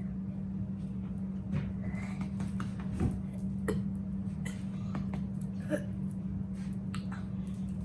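A woman's short, small burps, several in a row about a second apart, the loudest about three seconds in, over a steady low background hum.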